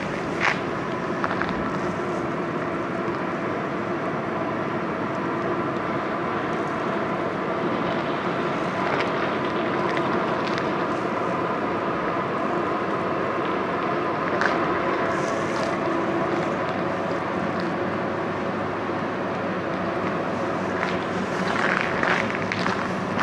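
Steady mechanical hum holding several steady tones, with a few footsteps near the end.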